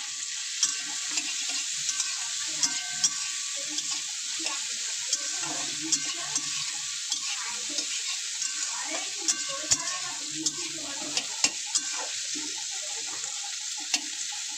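Carrots, green beans and capsicum sizzling in ghee in a metal kadai, a steady hiss, with a spatula stirring and clicking against the pan at irregular moments.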